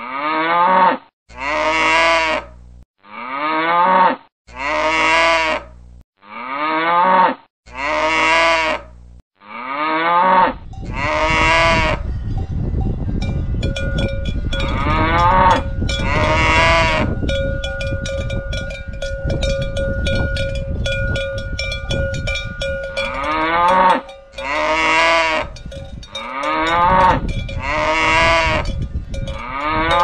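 Cows mooing over and over, long low calls about one every second and a half. From about ten seconds in, a cowbell rings steadily over outdoor field noise with only a moo now and then, before the run of moos comes back near the end.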